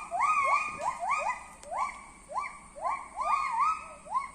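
Gibbon singing: a steady run of whooping notes, about two a second, each sweeping up in pitch and levelling off, some with a small dip before rising again.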